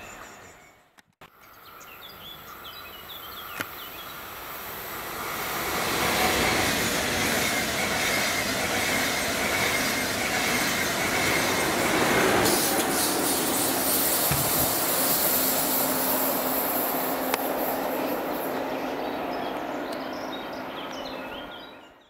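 Electric train passing on the line: the rail noise swells over a few seconds, stays loud for about ten seconds as the train goes by, with a steady hum in the second half, then fades away near the end.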